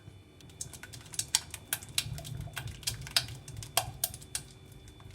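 Heat-proof spatula stirring and scraping the bottom of a saucepan of thickening banana custard, giving irregular clicks and scrapes over a steady low hum.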